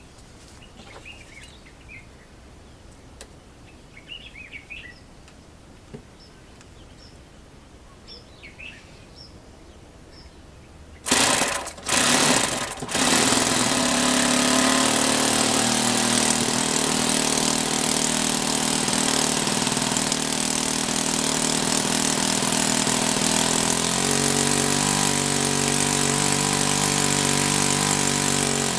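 Faint bird chirps, then about eleven seconds in an OS FS 40 four-stroke model aircraft glow engine, fitted with a freshly made replacement piston ring, catches in a few short bursts and starts, running steadily. Its pitch shifts about two-thirds of the way through.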